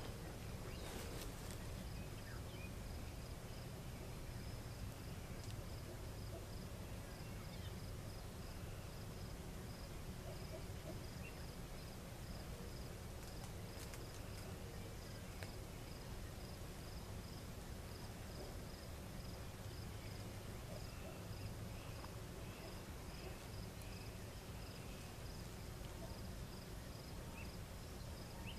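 Crickets chirping in a steady, evenly pulsed high trill over a faint low rumble of background noise.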